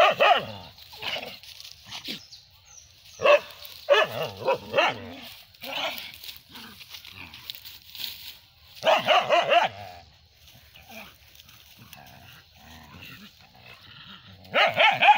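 Dogs barking in several short spells a few seconds apart while they scuffle.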